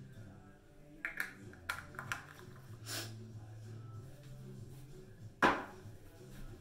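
A few light clicks and knocks from small objects being handled, then one sharper knock about five and a half seconds in, over faint background music.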